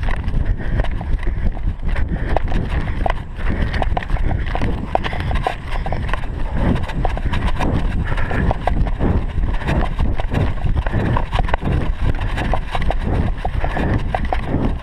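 Running footsteps on grass, a steady rhythm of thuds picked up by a body-worn GoPro, over a low rumble of wind and jostling on the microphone.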